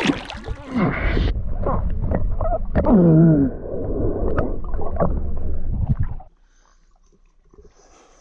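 Water splashing and gurgling close to the microphone as a person swims and wades, with a short muffled cry sliding down in pitch about three seconds in. The splashing cuts off abruptly about six seconds in, leaving only a faint background.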